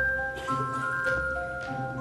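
Instrumental music with a bell-like mallet melody, such as glockenspiel or xylophone, with new notes about twice a second over a steady low bass.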